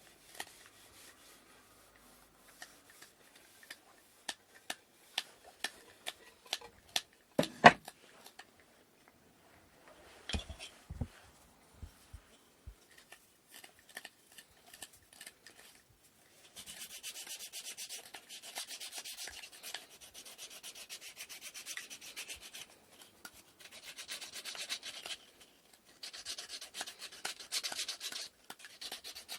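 Wooden inkle loom parts being handled and hand-sanded. First comes a series of light clicks and knocks of wood, the loudest about seven and a half seconds in. From about halfway there is steady scratchy sandpaper rubbing in long stretches with short pauses.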